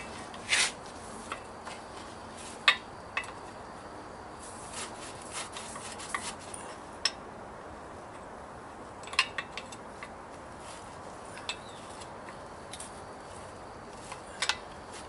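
Scattered sharp metallic clicks and scrapes of pliers and a wrench working on a truck wheel's valve stem nut as it is tightened to stop an air leak.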